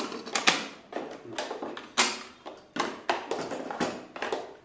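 Hard plastic clicks and knocks as a Makita 18V Li-ion battery and its charger are handled and set down in the plastic carry case: many sharp taps in uneven succession, the loudest about half a second in.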